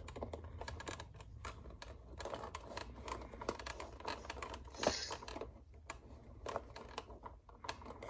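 Small irregular plastic clicks and rattles of a Big Mouth Billy Bass's motor and plastic gear housing being handled, with one louder knock about five seconds in.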